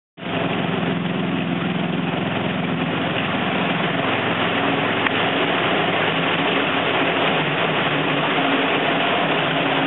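Water pouring from the flume onto the buckets of a turning iron overshot water wheel, a steady rushing splash with a low, even hum underneath.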